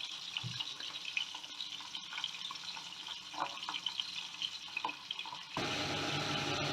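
Fish pieces frying in hot mustard oil in a covered pan: a faint sizzle with scattered crackles and pops. About five and a half seconds in, the sound steps up suddenly to a louder, steady hiss.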